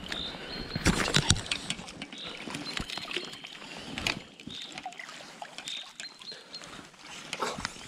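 Shallow stream water splashing and sloshing around a trout held in a landing net, in irregular bursts, loudest about a second in.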